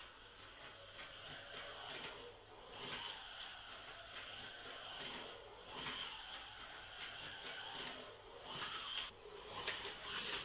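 Faint whirring of a toy slot car's small electric motor running on its plastic track, swelling and fading every few seconds as it speeds up and slows.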